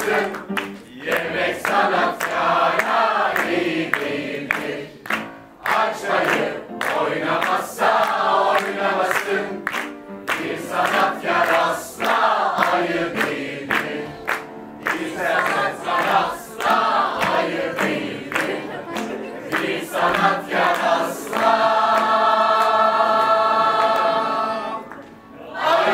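A stage group of men, women and children singing a song together. It ends on a long held final note for the last few seconds.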